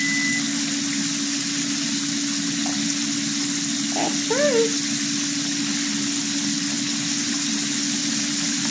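Chicken fingers deep-frying in hot oil in a wide pan: a steady, even sizzle, with a constant low hum underneath.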